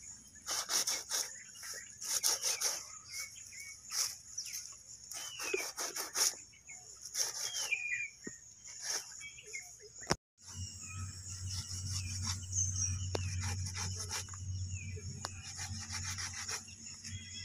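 A large knife scraping and slicing hide and flesh off a cow head in repeated short strokes, with a few bird chirps and a steady high hiss behind. After a brief dropout about ten seconds in, a steady low hum comes in under the continuing strokes.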